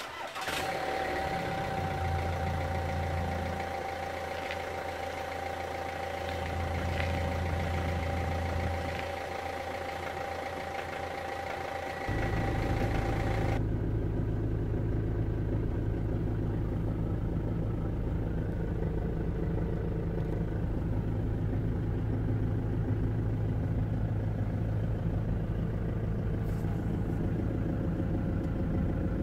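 Ford Transit Mk6 van engine starting cold after three months standing, catching in the first second, then idling steadily. Some twelve seconds in, the idle turns heavier and duller as it is heard from inside the cab.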